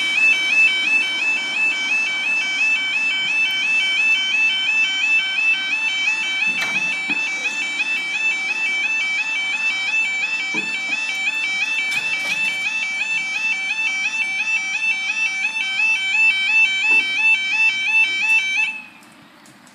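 Railway level crossing warning alarm sounding: a high warbling tone that wobbles up and down several times a second, warning of an approaching train. It cuts off abruptly near the end.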